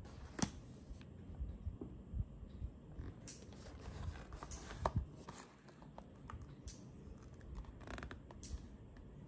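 Cardboard product boxes being handled and swapped by hand over a wooden table: scattered light taps, clicks and brief scrapes of card.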